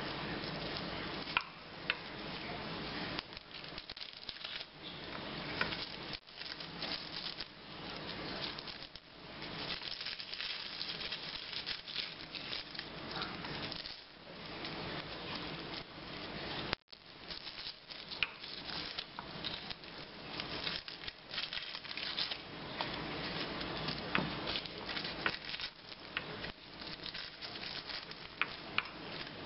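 Dry, papery garlic skins crackling and rustling as cloves are peeled with a small paring knife, with many small ticks and scrapes of the knife and cloves against a wooden cutting board.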